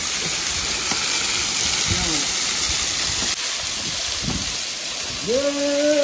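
Thin waterfall falling onto rocks, a steady hiss of splashing water; the flow is low, with barely any water coming down. A man's voice comes in briefly near the end.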